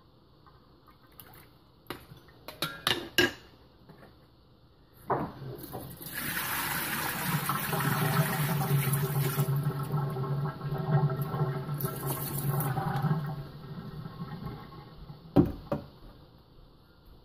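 Water pouring off a stainless steel bowl of pomegranate seeds into a steel sink, a steady splash lasting about eight seconds as the water is drained off the seeds. A few clicks come before it, and a single knock near the end.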